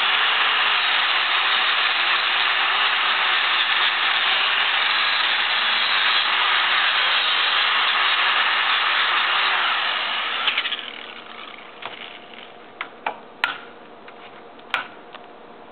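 Lincoln wire-feed welder's arc laying a bead: a loud, steady crackling hiss that starts abruptly and runs for about ten seconds, then stops, followed by a few sharp clicks and taps.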